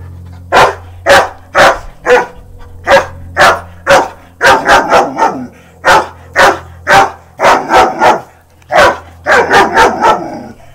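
German Shepherd puppy barking at a long-handled pink cobweb duster lying on the ground: a long run of sharp barks, about two a second.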